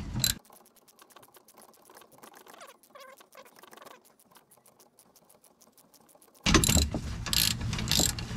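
Ratchet wrench clicking as the rear shock absorber's lower mounting bolt is unscrewed. Loud clicking in the first half-second gives way to a long stretch of faint, rapid ticking, and louder clicking returns about six and a half seconds in.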